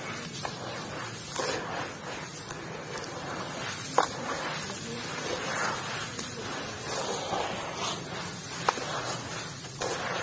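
Wet gravelly concrete mix being squeezed by hand and dropped back into a plastic tub: gritty crunching and squelching of stones in cement slurry, swelling with each handful, with two sharp clicks a few seconds apart.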